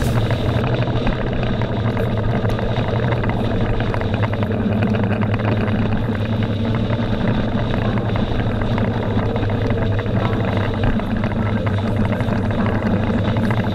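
Kawasaki Z750R's inline-four engine running steadily at cruising revs, heard from the bike-mounted camera with wind noise over it.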